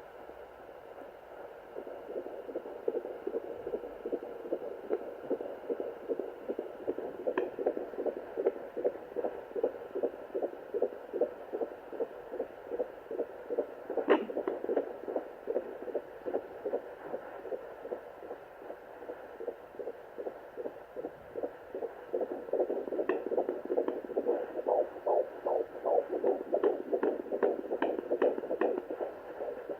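Sonoline fetal doppler picking up a fetal heartbeat at 14 weeks: a fast, even, whooshing pulse over a steady hum, stronger in the last third. A few sharp clicks of the probe are heard, the loudest about halfway.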